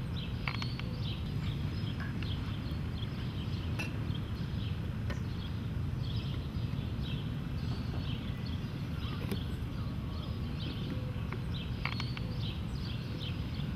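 Small birds chirping now and then over a steady low rumble of outdoor background noise.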